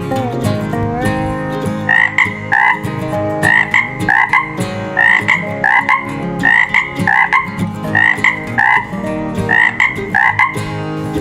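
Background music with a frog-like croaking call repeating over it. The croaks come in quick pairs, about one pair every second and a half, starting about two seconds in.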